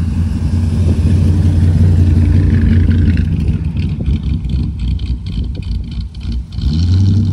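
Vintage convertible's engine running with a deep, steady rumble as the car pulls slowly away across the grass. The engine briefly dips and then picks up again near the end.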